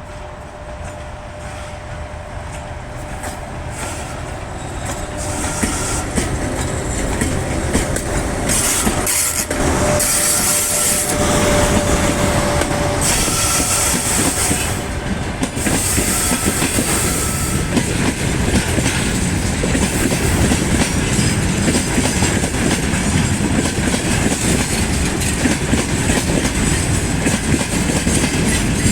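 Freight train hauled by a 2ES5K electric locomotive rolling past: wheels clattering over the rail joints, with high wheel squeal for a stretch in the middle. It grows louder over the first several seconds and then holds steady.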